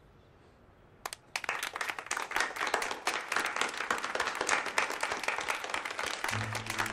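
Schoolchildren applauding: a single clap about a second in, then many hands join in a steady round of applause. Music comes in under it near the end.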